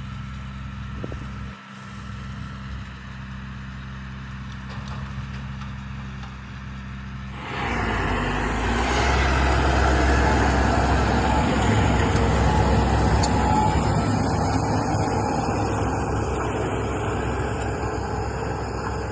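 A vehicle engine running steadily. About seven seconds in, a loud rushing noise sets in suddenly and stays, like wind and road noise from the vehicle moving.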